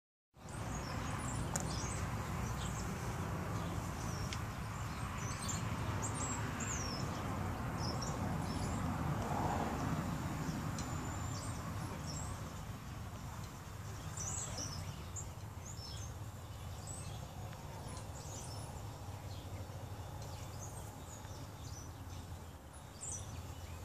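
Steady low rumble of outdoor background noise, with small birds chirping now and then in short high calls.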